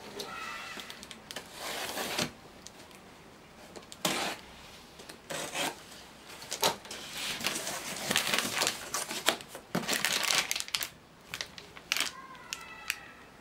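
A cardboard box being opened by hand: packing tape pulled at, cardboard flaps and box knocking and scraping in a string of sharp clicks and thuds, with rustling that grows busier partway through. Near the end a plastic-wrapped part rustles as it is lifted out.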